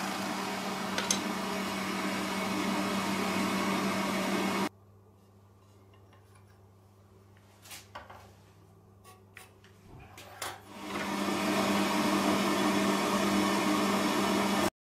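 Electric sliding mitre saw running, its blade spinning and cutting into wood boards, for about five seconds before it cuts off suddenly. A quiet stretch follows with a few light clicks and taps as a board is marked with a metal square and pencil. The saw then starts up again, running and cutting, until it cuts off suddenly near the end.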